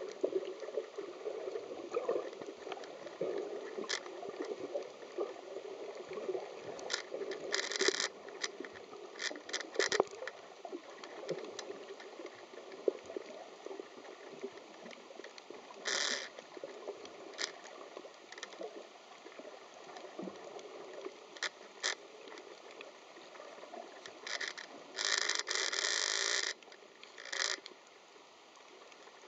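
Muffled underwater sound of sea water heard through a camera in a waterproof housing, with scattered clicks and a few short bursts of hiss. The longest and loudest burst lasts about a second and a half near the end.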